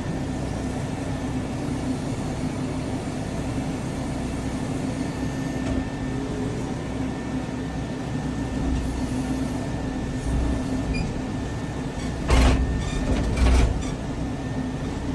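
Case backhoe loader's diesel engine running steadily under load while loading topsoil onto a dump truck. Two loud rumbling bursts near the end, a bucketful of dirt dropped into the truck bed.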